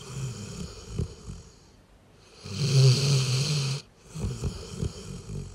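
A Doberman snoring in its sleep: one loud snore with a steady low buzz about halfway through, with softer rough breaths before and after it.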